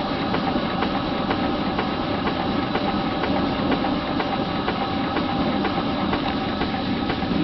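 Very early American horizontal steam engine running slowly and evenly on live steam at about 20 PSI, its valve gear and exhaust giving a steady, even beat over a constant mechanical noise.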